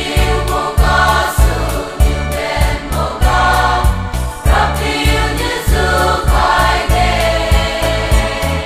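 Church choir singing a hymn together over a steady beat and a bass line.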